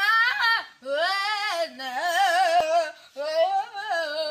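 A boy singing at full voice in four long, high phrases with a wavering, wobbling pitch, each phrase breaking off briefly before the next. A single sharp click sounds about two and a half seconds in.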